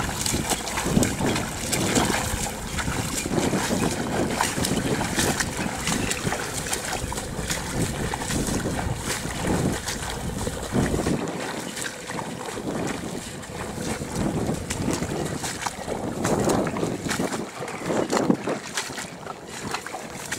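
Footsteps wading and sloshing through the shallow water of a flooded rice paddy, about one step a second, with wind buffeting the microphone; the wind rumble drops away about halfway through.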